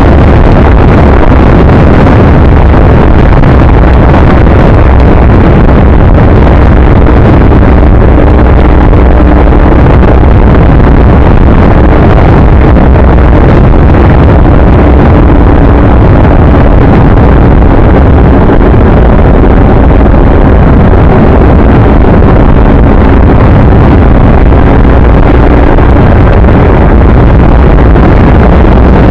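Steady, very loud rush of riding noise: wind buffeting the microphone over a low vehicle drone, overloaded throughout.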